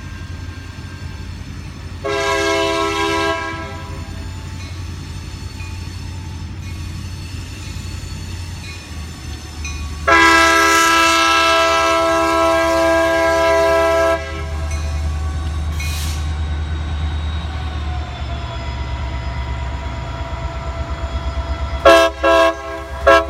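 Diesel freight locomotives rumbling as the train pulls out, the rumble growing louder in the second half, while a Nathan K3LA five-chime air horn sounds a short blast a couple of seconds in, a long blast of about four seconds midway, and two quick blasts at the end.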